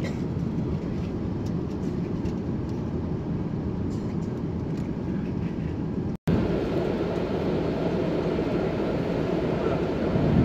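Steady low roar of an Airbus A330-300's cabin in flight, engine and airflow noise heard from an economy seat. It breaks off for an instant about six seconds in and comes back a little louder.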